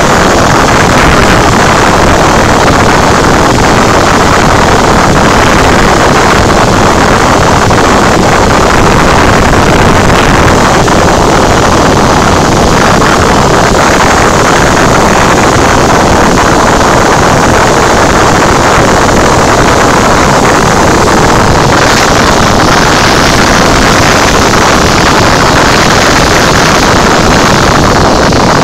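Cabin noise of a Cessna 172 in flight: the piston engine and propeller running steadily under loud wind rush, heard from inside the cabin.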